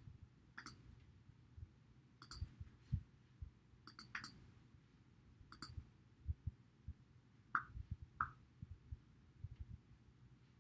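Faint, scattered clicks from operating a computer while copying and pasting, several sharp clicks spread over about ten seconds, with a few soft low knocks between them.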